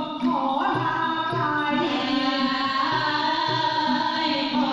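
Live Thai central-region folk singing: held, sliding sung notes over a steady hand-drum beat.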